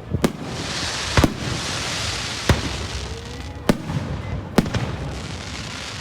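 Fireworks going off: five sharp bangs about a second apart, over a steady hissing crackle that thins out in the second half.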